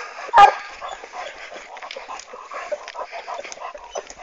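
Hunting dogs working a boar trail: one sharp bark about half a second in, then fainter yips and whines.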